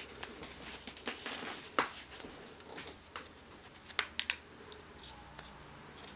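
Sheet of origami paper rustling and crinkling as fingers fold and crease it, with a few sharp crackles about four seconds in.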